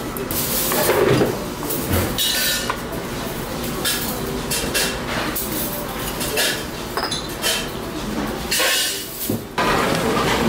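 Tableware sounds of a noodle meal: metal chopsticks and spoon clinking and scraping against stainless and ceramic bowls, with a few short slurps. Just before the end the sound changes abruptly to the steady hum of a busy indoor public space.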